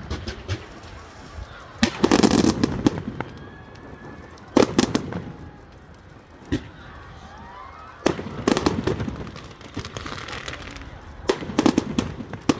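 Fireworks going off in clusters of sharp bangs and crackles, about two seconds in, again at four and a half, around eight to nine, and at eleven to twelve seconds, with quieter outdoor background between them.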